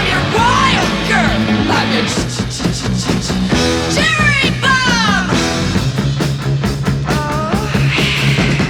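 Rock music playing from a vinyl record on a turntable.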